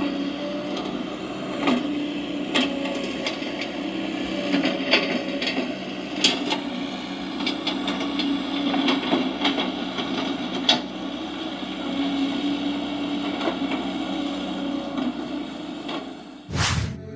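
Huina RC excavator's small electric motors whining as the machine works, the pitch shifting as functions change, with scattered clicks and knocks from its moving parts. A short whoosh near the end leads into music.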